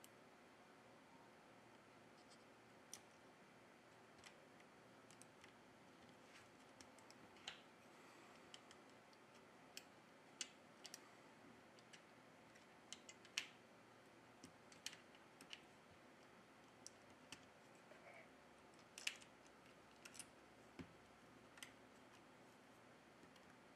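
Faint, irregular small clicks and taps as flex-cable connectors are snapped onto a OnePlus 6T's motherboard by fingertip and a plastic spudger, over a low hiss. There are a few dozen of them, spread unevenly.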